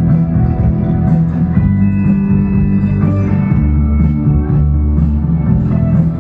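Loud soundtrack music with guitar, drums and a heavy bass line, played over the loudspeakers of a light show.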